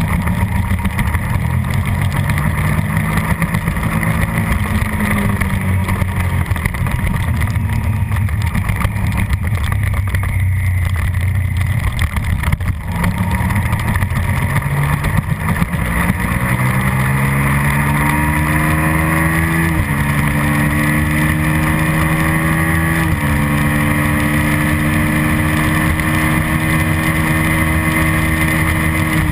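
A racing Suzuki SV650's 645 cc V-twin engine, heard from on the bike with wind rush. Its note stays lower and wavers through a leaned-over corner. Then it climbs hard under acceleration onto the straight, dropping in pitch at two quick upshifts just past the middle and climbing again each time.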